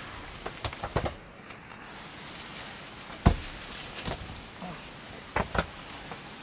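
Young black howler monkeys play-fighting, with scattered thumps and knocks as they tumble and grapple on the mat floor; the loudest comes about three seconds in. A steady hiss runs underneath.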